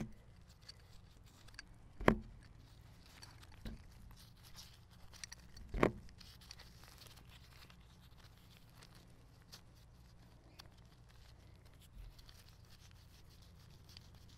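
Steel transmission parts being handled on a wooden bench while a synchro hub and gear are fitted onto a gearbox output shaft: a few light metal clinks and knocks, the loudest about six seconds in, with faint rustling of gloved hands between them.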